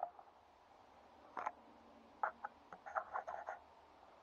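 Faint, scattered rustling and crackling: a short crackle about a second and a half in, then a quicker run of crackles near the end.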